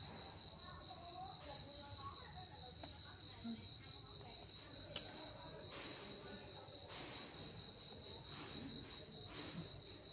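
Crickets chirping steadily: a high chirp pulsing in rapid even beats over a higher continuous trill. A single sharp click sounds about five seconds in.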